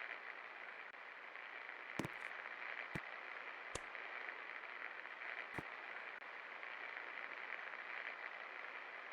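Best Electric Works Galaxy II 56-inch ceiling fan running with a steady hiss of moving air, broken by a few sharp clicks about two, three, four and five and a half seconds in.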